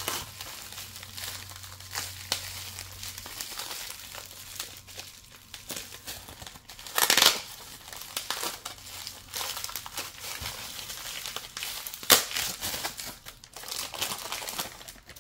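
Bubble wrap and a clear plastic sleeve crinkling and rustling as a phone is unwrapped by hand, with louder rustles about seven and twelve seconds in.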